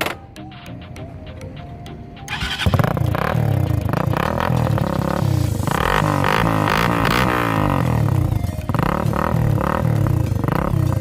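Hi Speed Infinity SR 150's single-cylinder 150cc engine starting about two seconds in, then revved up and down several times in neutral.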